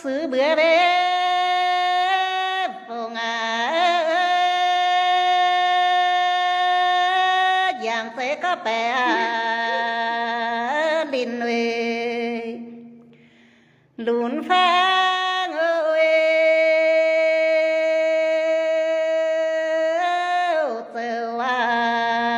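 A woman singing a Red Dao folk song (hát lượn) unaccompanied, in long held notes that slide in pitch at the end of each phrase. She pauses for breath about two-thirds of the way through, then starts a new phrase.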